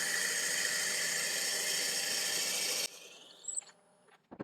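Wood lathe running while a drill bit held in the tailstock bores into the end of a small laburnum branch blank, a steady hissing drone that cuts off abruptly about three seconds in. A few light clicks and a short knock follow near the end.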